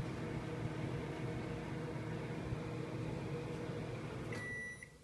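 Microwave oven running with a steady hum as its timer runs down. It shuts off about four seconds in, and the first end-of-cycle beep sounds just before the end.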